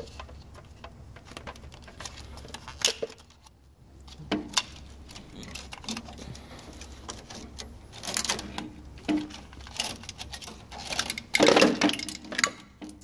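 Plastic vacuum fan housing of an HP Designjet 5500 printer being worked loose and lifted out by hand: scattered clicks, knocks and scraping of plastic against the printer's frame. The loudest stretch of clatter comes near the end.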